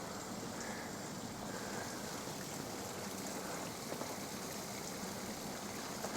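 Steady rushing of running water at a river dam, an even wash of noise with no gusts or breaks.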